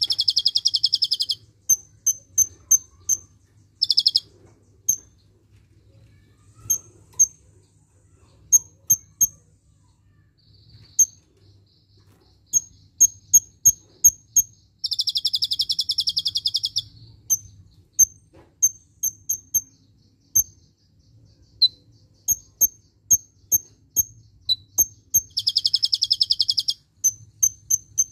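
Caged kolibri ninja (konin) sunbird singing: runs of short, high chirps, several a second, broken by loud, rapid trills of one to two seconds at the start, about four seconds in, midway and near the end. Its song is filled in with the rapid 'tembakan' bursts of the cililin.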